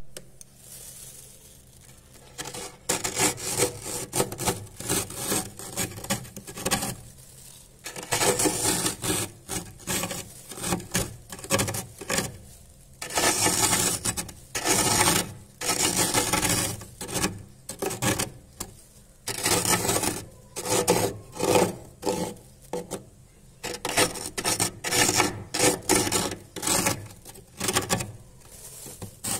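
A spoon scrapes thick, fluffy freezer frost in repeated scraping strokes that come in irregular clusters. It is quieter for the first two or three seconds.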